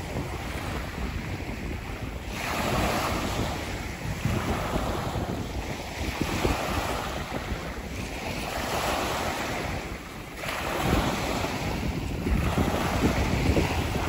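Sea waves washing onto the shore, the wash swelling and ebbing every two to three seconds, with wind buffeting the microphone.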